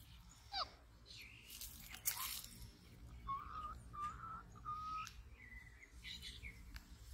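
A falling whistle, then a quick run of three short high chirps and one higher note, with brief scratchy crunching noises in between.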